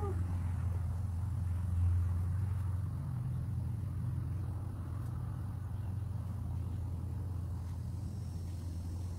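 A steady low mechanical hum, a little louder about two seconds in.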